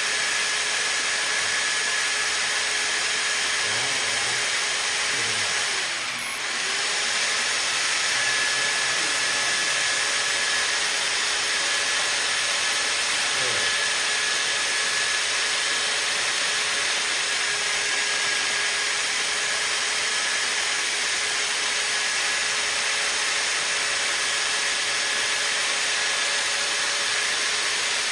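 A motor-driven drain-cleaning machine running steadily: a constant hiss with a faint steady whine, dipping briefly about six seconds in.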